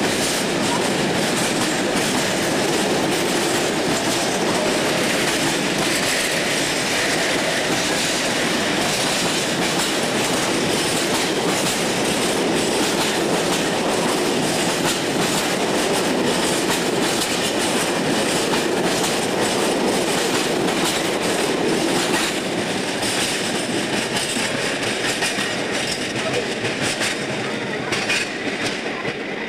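Freight train of bogie tank wagons rolling past, its wheels clattering steadily over rail joints and points. The sound eases and grows uneven near the end as the last wagon draws away.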